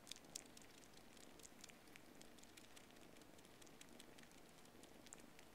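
Faint, irregular little clicks and smacks of two Siamese kittens suckling on a plush toy squirrel, over a low hush.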